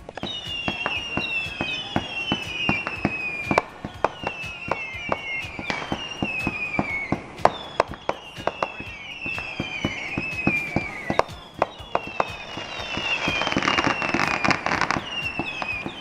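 Fireworks: high whistles, one after another and overlapping, each falling slowly in pitch over two to three seconds, over a steady stream of sharp crackling pops.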